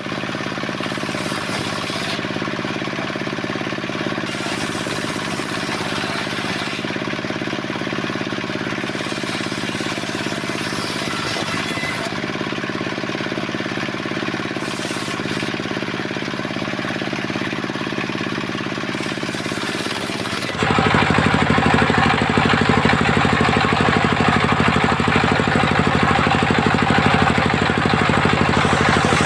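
The engine-driven rig of a mobile circular sawmill running steadily, then abruptly getting louder and denser about two-thirds of the way through.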